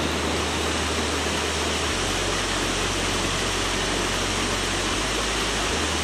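Waterfall pouring into a rocky plunge pool, with water running over rocks below it: a steady rushing of water.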